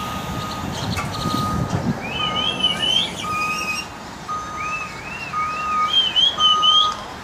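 Truck reversing alarm beeping steadily, about once a second, as the double-trailer rig backs up. Warbling whistles sound over the beeps, with some engine rumble about a second in.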